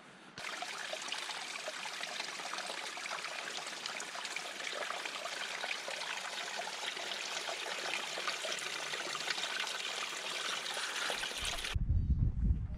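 Mountain stream rushing: a steady, dense hiss of flowing water that starts suddenly and holds even for about eleven seconds. Near the end it cuts off abruptly, and a loud low rumble follows.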